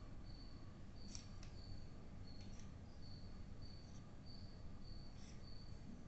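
Faint, evenly repeating high chirp, about two a second, with a few soft clicks of colored pencils being handled and set down on a rug.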